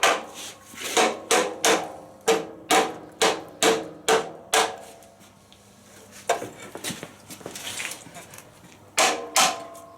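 Hammer blows knocking loose a partly cut motorcycle rear fender that is still hanging on: about ten sharp, ringing strikes, a few seconds of scraping, then two more strikes near the end.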